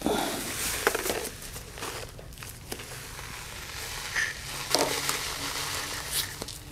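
Rustling of a bundle of barred feathers being picked up and handled on a tabletop, with a few light clicks and knocks of small items on the table.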